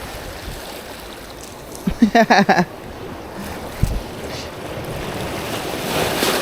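Wind and waves on open water, with wind buffeting the microphone. About two seconds in comes a short run of five or so quick pitched sounds, and near the end the water noise swells as a wave builds.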